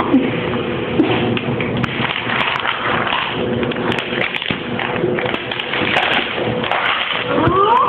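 Scuffling and handling noise on a phone's microphone, with repeated taps and thumps as a child's hands grab and bump at the phone. Near the end a voice rises in a whine.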